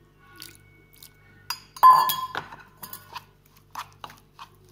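A metal spoon clinking and scraping against a ceramic plate while mixing a wet gram-flour paste, with short clicks about twice a second. One louder, ringing clink comes about two seconds in.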